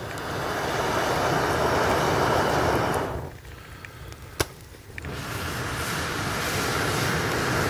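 Two long blows through a blowpipe into a campfire, each lasting about three seconds, a rushing air noise that fans the flames. Between them, a single sharp pop from the fire.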